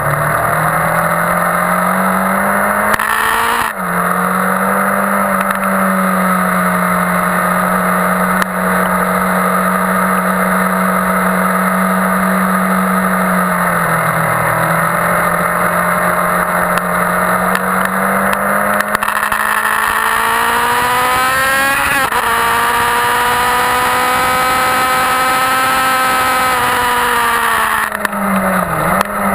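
2001 Yamaha R1's inline-four engine at high revs on a circuit, heard onboard. Its pitch dips briefly about 4 and 14 seconds in, climbs sharply about 22 seconds in and falls near the end, over a steady rush of wind.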